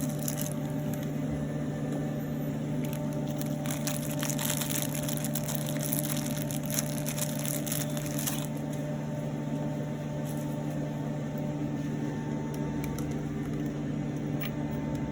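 Steady electrical-mechanical hum from a powered-on YAG laser machine. Scattered crackling clicks run over it through the first half and stop a little past the middle.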